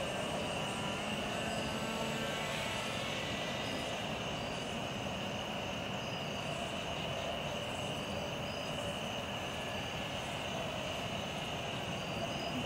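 Radio-controlled model airplane's motor and propeller droning steadily overhead, with a sliding change in pitch about two seconds in as it passes. Short high chirps repeat faintly in the background.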